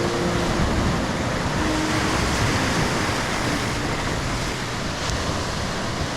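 Ocean surf washing steadily onto the beach, a continuous rushing noise.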